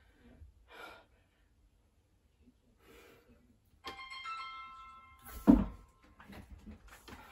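A few faint breaths, then music with held keyboard-like notes comes in about four seconds in, with one loud low thump a moment later.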